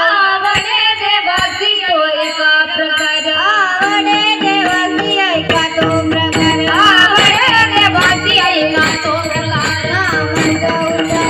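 A woman singing a devotional melody with richly ornamented, bending phrases over a held drone. About five seconds in, a drum and small hand cymbals join in with a steady beat.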